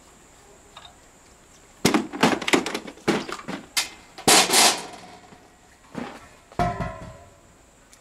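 Clicks, rattles and knocks of refrigerant charging hoses, brass fittings and a manifold gauge being handled, with a short noisy burst about halfway through, then a heavier metallic clunk with a brief ring near the end.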